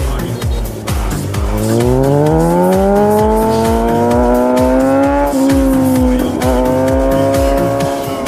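Kawasaki Z900's inline-four engine accelerating hard, its pitch rising steadily for about four seconds, wavering briefly about five to six seconds in, then holding a steady high pitch. Background music with a steady beat runs underneath.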